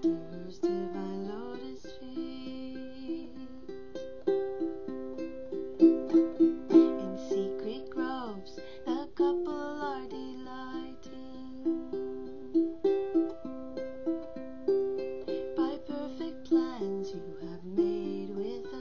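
A woman singing an English devotional bhajan while strumming chords on a ukulele.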